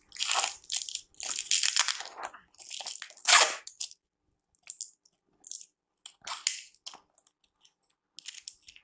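Taped paper wrapping being torn and crumpled by hand: several loud rustling bursts over the first four seconds, then a few short crinkles.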